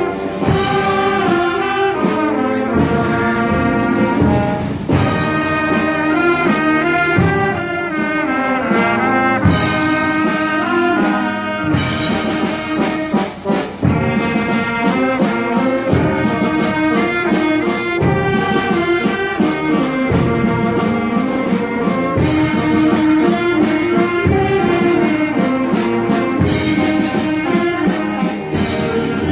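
Wind orchestra playing a piece with brass to the fore, trombones and trumpets over a steady percussion beat.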